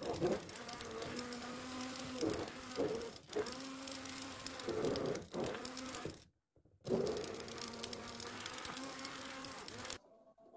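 Hand-held stick blender running in a pot of lentil soup, pureeing it smooth. It buzzes steadily for about six seconds, stops briefly, then runs again for about three seconds before cutting off.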